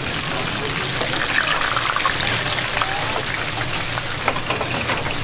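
Battered green chili peppers sizzling and crackling in the hot oil of a commercial deep fryer, a steady dense hiss with fine crackles.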